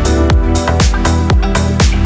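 Electronic dance music with a steady, driving kick-drum beat, about three beats a second, under sustained synth tones.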